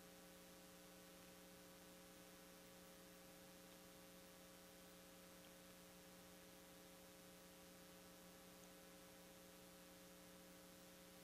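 Near silence, with a faint steady electrical hum of a few low, unchanging tones.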